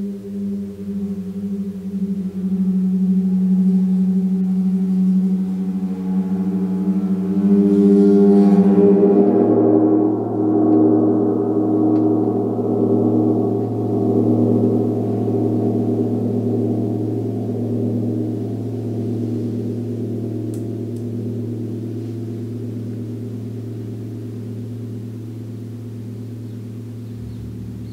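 Large gong played with a padded mallet: a wavering drone of many overlapping tones that swells to its loudest about nine seconds in, where a deeper hum comes in, then slowly fades as it rings on.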